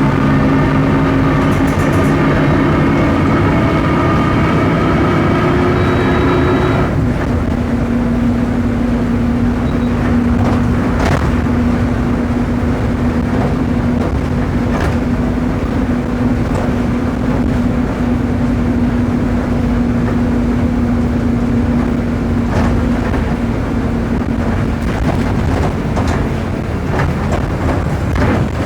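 Volksbus 17.230 OD bus on the move, its MAN D0834 diesel pulling with a slowly rising note for about seven seconds, then dropping away. A single steady whine then holds for most of the rest, the droning of the bus's noisy differential, with a few knocks from the body.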